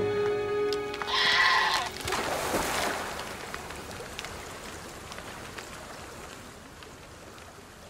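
A markhor gives a short, loud bleating cry about a second in, as the snow leopard grapples with it. This is followed by a burst of noise and then the steady rush of a fast white-water river, slowly fading.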